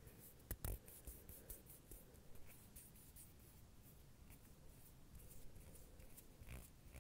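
Faint, soft scratching and rustling close to the microphone, with a few light clicks: two close together about half a second in, and another near the end.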